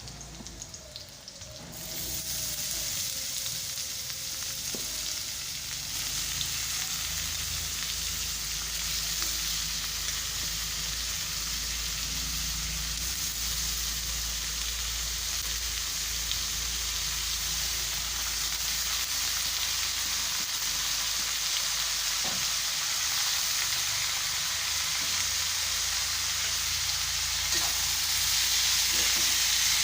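Vegetables frying in hot oil in a pan with fried onion: a steady sizzle that jumps up sharply about two seconds in as they go into the pan. A few light knocks of stirring come near the end.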